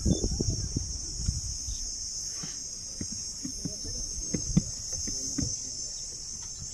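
Steady high-pitched chirring of insects, unbroken throughout, with scattered soft low knocks and rumbles underneath.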